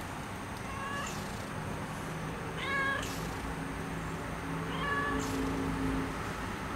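A tabby cat meowing three times, short high-pitched meows about two seconds apart.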